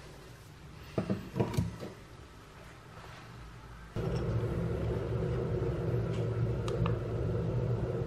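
A few sharp plastic clicks and knocks as a drone battery charging hub and its adapter are handled. About four seconds in, a steady low hum starts abruptly and runs on.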